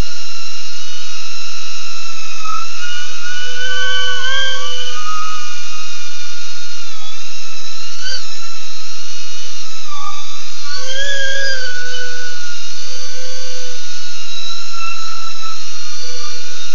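BetaFPV Aquila16 FPV quadcopter's brushless motors and propellers whining in flight. The high pitch rises and falls with the throttle, swelling about four seconds in and again around eleven seconds.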